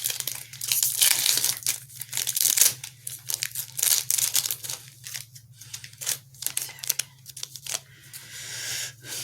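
Foil wrapper of a Magic: The Gathering Zendikar Rising booster pack being torn open and crinkled, a run of irregular rips and crackles over a low steady hum.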